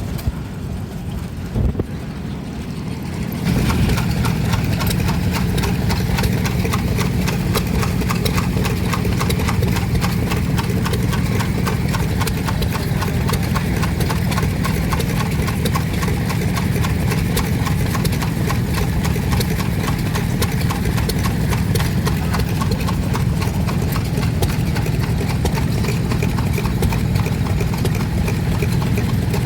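Vintage stationary engine running with a steady low exhaust beat and a fast, even mechanical clatter, getting louder about three and a half seconds in.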